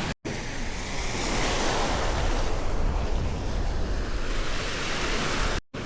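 Gulf surf washing onto the beach, a steady rush of waves, with wind buffeting the microphone.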